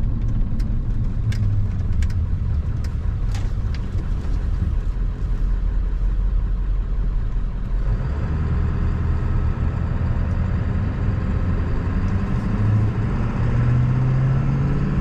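Ford F-350's 7.3-litre Power Stroke turbo diesel V8 running under way, heard from inside the cab. A row of sharp clicks sounds in the first few seconds. From about eight seconds in the engine gets louder and its note climbs as the truck accelerates.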